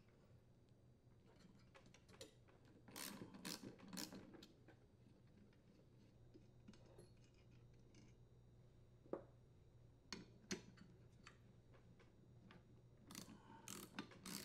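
Faint ratchet wrench with a 14 mm socket loosening the clutch mounting bolts, in two short spells of rasping clicks, with a few sharp metal clicks between them as the clutch is handled.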